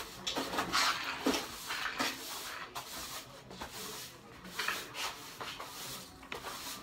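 Uneven rubbing, swishing strokes of a long-handled cleaning tool pushed across a floor.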